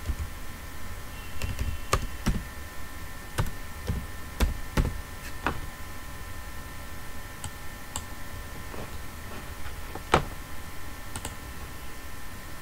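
Computer keyboard typing in a few irregular keystrokes, then scattered mouse clicks, over a faint steady hum.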